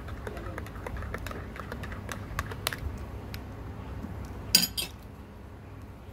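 A teaspoon stirring coffee in a glass, clinking again and again against the side, then a single louder clink about four and a half seconds in.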